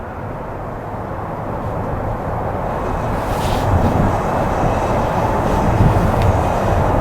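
A vehicle approaching, its rumble growing steadily louder.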